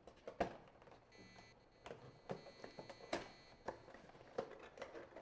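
Faint handling of a cardboard box and packaging: scattered light clicks and rustles as a tray is slid out. A faint high electronic whine made of several steady tones sounds from about a second in until nearly four seconds.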